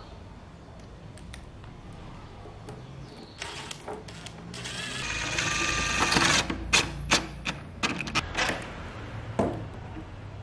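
Cordless impact driver driving a screw into wood: the motor runs up for about a second, then a string of short quick bursts as the screw is pulled tight, with a few light knocks of handling before it.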